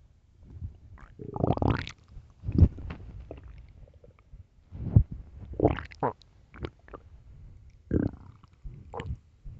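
Human stomach growling and gurgling: a run of irregular rumbles, squelches and short rising gurgles, with the sharpest pops about two and a half and five seconds in.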